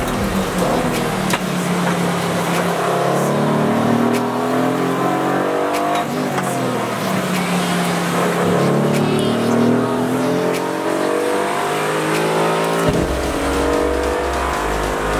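Aston Martin Vantage GT4 race car's 4.0-litre twin-turbo V8, heard from inside the cabin running hard on track, its pitch climbing and dropping back several times as it revs up and eases off.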